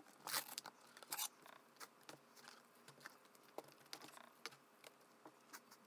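Faint, irregular small clicks and crinkles: the foil lid of an instant-noodle tray being handled, then metal chopsticks stirring noodles in the plastic tray. The clicks are thickest in the first second or so.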